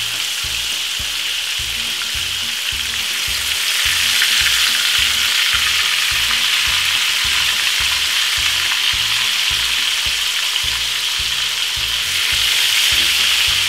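Chicken pieces frying in hot vegetable oil in a frying pan: a steady sizzle that grows louder about four seconds in. It swells again near the end as a piece is handled with tongs.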